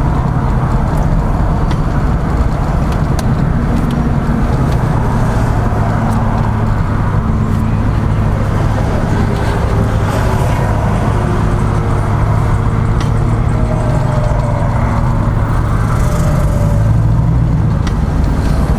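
A vehicle's engine and running noise heard from inside the cabin while creeping along in stop-and-go highway traffic: a steady low drone.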